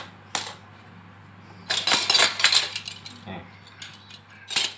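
Bursts of close handling noise, rustling with light clinks, as freshly sliced paper scraps are gathered up in the hands: a short click at the start, a dense flurry about two seconds in, and more near the end.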